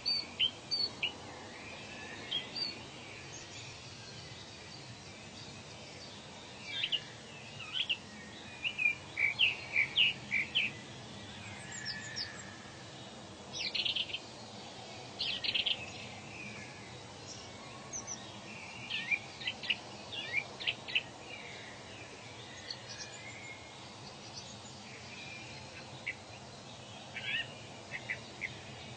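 Wild birds calling: clusters of short, sharp chirps and whistles every few seconds, over a steady faint hiss of outdoor background noise.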